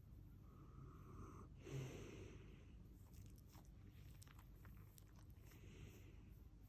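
Faint wheezing, snorting breaths from a miniature dachshund, one about two seconds in and another near the end. The owner wonders whether this is reverse sneezing or caused by a tumour that has spread to the lymph nodes.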